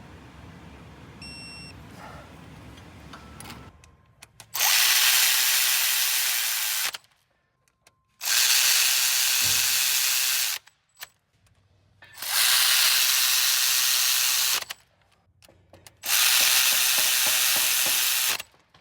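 A power tool run in four bursts of about two to three seconds each, with short pauses between, after a few seconds of quieter steady hum.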